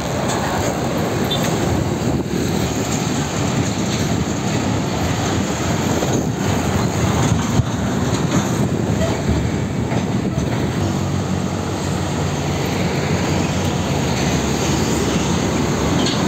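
Heavy diesel trucks and motorcycles passing close by on a busy road, a steady rumble of engines and tyre noise.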